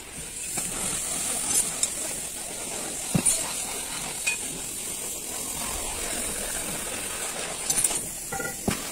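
Spanner and metal parts clinking and tapping a few times against a truck starter motor and its solenoid as it is handled and reassembled, with a small cluster of clinks near the end, over a steady background hiss.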